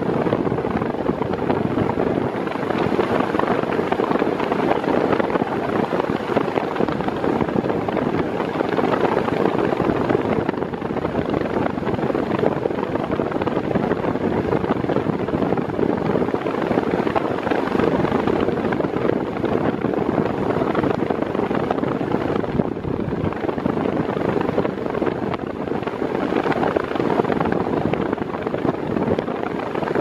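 Mondial Turbo Force 8 40 cm electric fan, fitted with a four-blade propeller in place of its eight-blade one, running at full speed: a steady rushing of moving air with the motor's hum.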